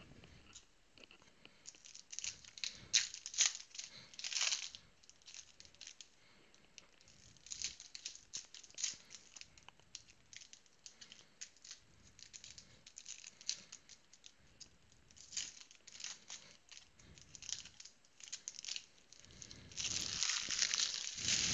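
Trading-card pack wrappers being torn open and crinkled, in scattered short crackles, with a longer, louder stretch of tearing and crinkling near the end.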